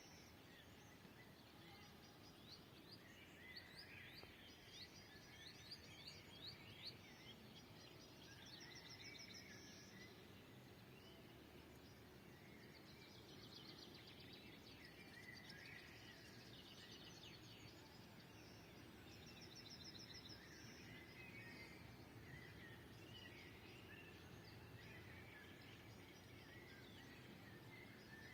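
Faint songbirds singing, several at once, with repeated fast trills and quick downward-swooping whistles overlapping.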